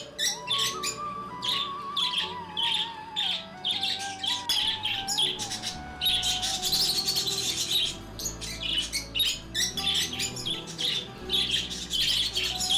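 Lovebirds chirping busily, a fast stream of short high calls, over a slow instrumental melody.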